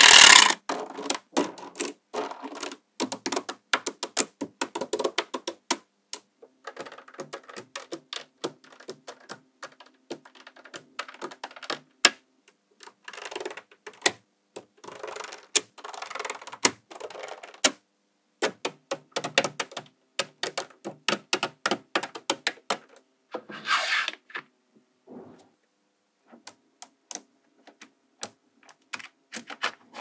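Small magnetic balls clicking together in quick, irregular snaps, with short bursts of rattling as handfuls of balls roll and settle against each other.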